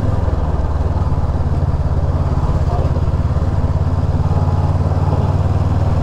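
Motorcycle engine running steadily under way, an even pulsing of its firing strokes with no change in revs.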